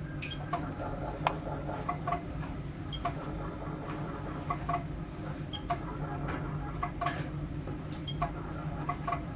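Spectral MM milling machine's steady low hum, with irregular light clicks about one or two a second as the Z axis is jogged down in small steps.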